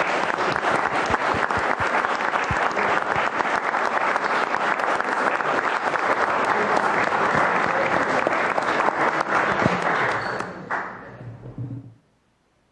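Audience applauding with steady, dense clapping that dies away near the end.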